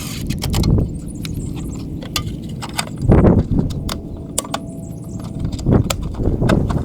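Scattered metallic clicks and clinks of tools or hardware being handled, with several muffled low thumps, the loudest about three seconds in.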